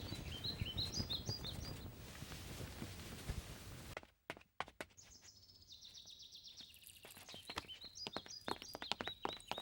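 Birds chirping over a dense low rustling noise, then a break about four seconds in. After it come irregular footstep-like knocks with birds chirping high above them.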